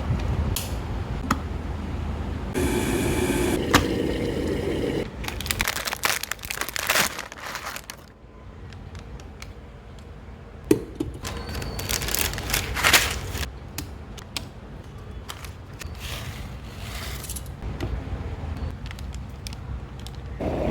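Plastic packaging crinkling and tearing, like a noodle packet being opened and handled, with scattered clicks and knocks. The busiest crackling comes about six to seven seconds in and again around twelve to thirteen seconds.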